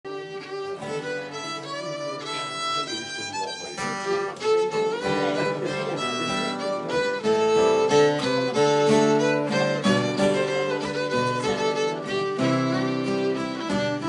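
Fiddle playing a lively folk tune in quick bowed notes. About four seconds in, an acoustic guitar joins with a lower accompaniment.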